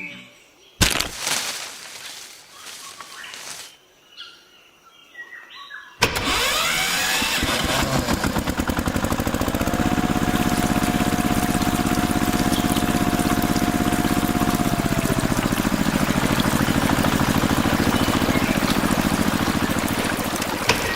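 A small motor starts about six seconds in and runs steadily with a rapid pulsing, after a quieter stretch with a couple of knocks.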